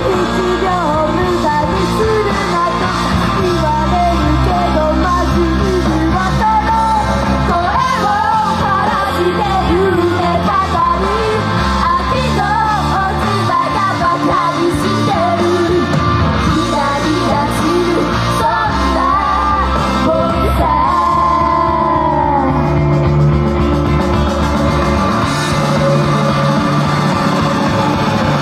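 Female idol group singing a rock song live, the voices over a loud, full rock backing, with a long held note that falls in pitch about three quarters of the way through.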